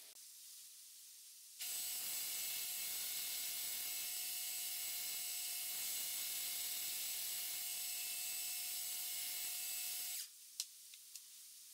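Belt grinder running with a workpiece pressed against the belt at the platen: a steady grinding hiss with a steady whine. It starts abruptly about one and a half seconds in and stops abruptly about ten seconds in, followed by a sharp click and a couple of faint ticks.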